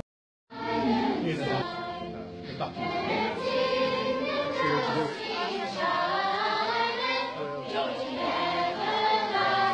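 Children's choir singing together, starting about half a second in.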